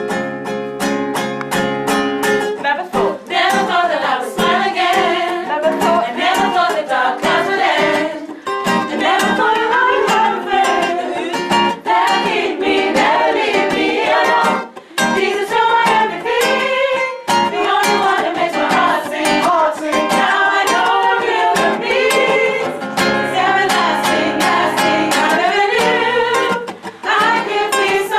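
Gospel singing with strummed guitar accompaniment, played through continuously.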